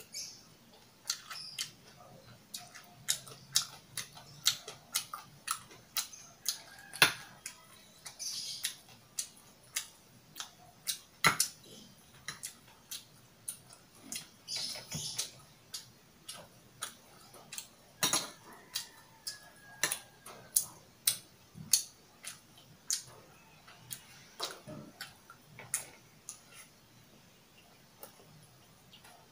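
Close-miked eating: a metal spoon and fork clicking and scraping against a bowl, with chewing and mouth sounds in between, as a string of sharp, irregular clicks.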